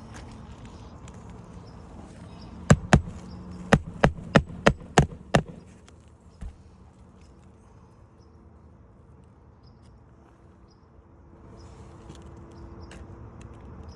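A quick series of about eight sharp hammer strikes on a shingle roof, two to three a second, then one more single strike a second later: roofing nails being driven or worked during a shingle repair.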